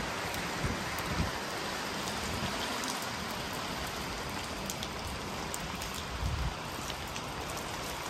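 Steady heavy rain falling, with scattered drop ticks. Brief low gusts of wind buffet the microphone about a second in and again a little after six seconds.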